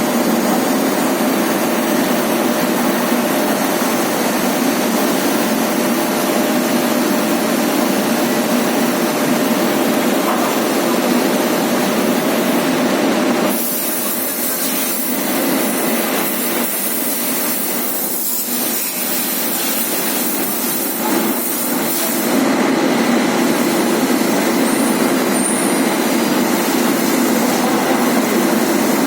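Industrial parts-washing machine running, a steady hiss of water jets spraying over the machine's drone. About halfway through the spray turns brighter and thinner for several seconds, then returns to its earlier sound.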